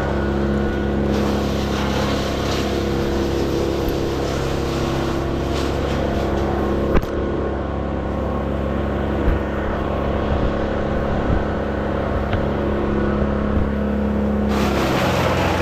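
An engine running steadily, with a sharp knock about seven seconds in and a change in its tone near the end.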